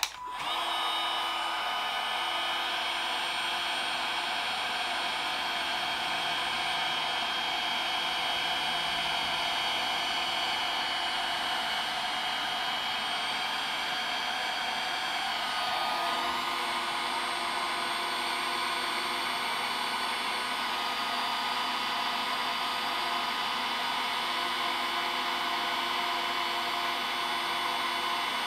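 Cordless heat gun switched on at the start and running steadily, its fan blowing with a thin whine, shrinking heat-shrink tubing over a wire. Its tone shifts slightly about halfway through.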